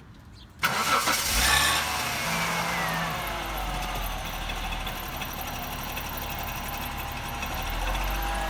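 1996 Jaguar XJ6's straight-six engine starting: it catches suddenly about half a second in, the revs flare and then fall away over the next couple of seconds, and it settles into a steady idle.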